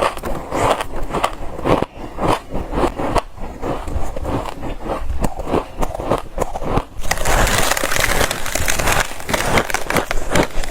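Soft, dry freezer frost crunching and scraping in quick, repeated crunches. About two-thirds of the way through the crunching turns brighter and hissier.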